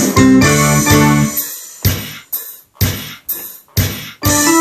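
Ensoniq SD-1 keyboard playing rock chords in a driving band groove. About a second and a half in, the music breaks off into a stop-time passage of short, sharp chord hits with gaps between them. The full groove comes back near the end.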